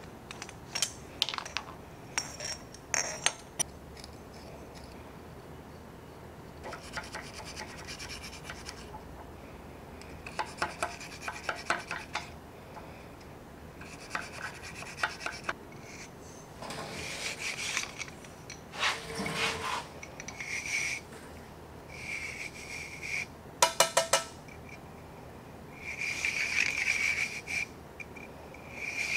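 A bronze bore brush on a brass rod is scrubbed back and forth in the chambers of an 1851 Navy revolver's steel cylinder, in several short bouts. A few sharp metallic clicks and taps come near the start and again about two-thirds of the way in.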